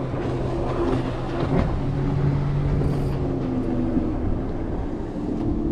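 Boat motor running steadily with a low, even hum; its lowest note fades about four seconds in while a higher note carries on.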